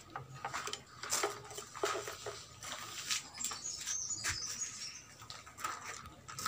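Irregular light clicks and rustles of hands handling a pedestal fan's plastic housing, wiring and a newly fitted capacitor, with a brief high chirping about four seconds in.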